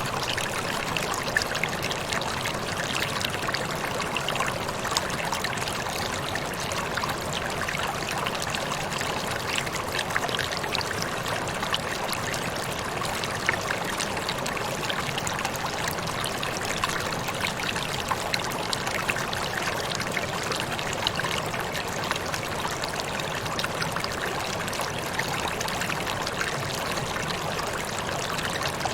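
Steady rush of a small waterfall: water pouring and splashing, with flickering splashes throughout.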